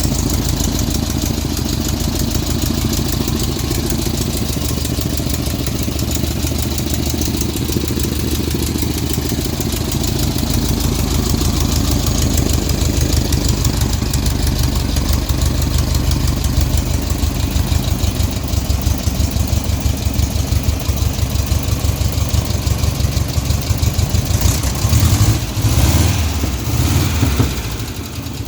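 Small motorised-bicycle engine running at idle, a steady rapid chain of firing pulses. It gets a bit louder about halfway through, and the note wavers near the end.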